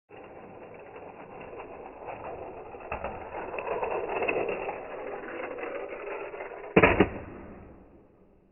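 Toy cars rattling and clattering, loudest in the middle, with one loud knock about seven seconds in before the clatter fades away.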